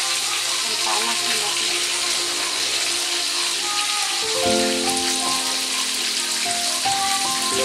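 Yellow spice paste sizzling as it fries in hot oil in a wok. Background music with held notes grows stronger about four seconds in.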